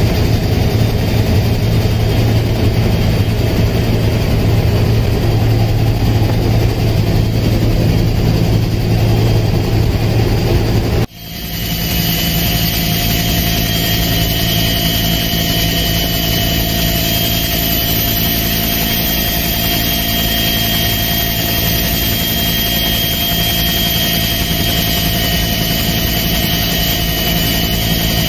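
Helicopter engine and rotor noise heard inside the cabin, a loud steady drone. It drops out for a moment about eleven seconds in and comes back with a steady whine over the drone.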